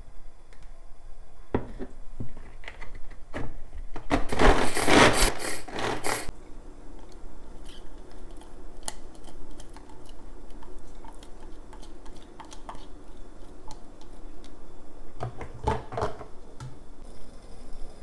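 Small knocks and scrapes of finely chopped green beans and carrots being emptied out of a glass chopper bowl onto a plate. A louder burst of noise lasts about two seconds, starting about four seconds in, with a shorter one near the end.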